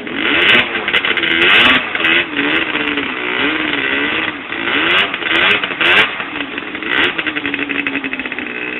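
Sport quad (ATV) engine revved hard over and over, its pitch climbing and dropping with each throttle blip, while the spinning wheels throw mud and water, the quad stuck in deep mud. The revving is loudest in bursts about half a second to two seconds in and again around five to six seconds, then steadies near the end.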